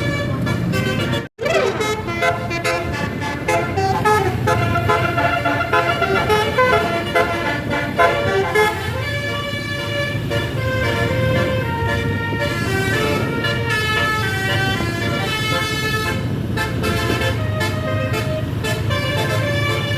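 A 36-note Basuri telolet bus horn playing a fast melody of short, stepping notes over the bus's engine running low and steady. The sound cuts out for an instant about a second in.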